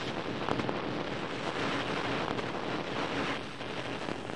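Steady rushing noise with a low rumble underneath, like wind or surf, dipping slightly about three seconds in.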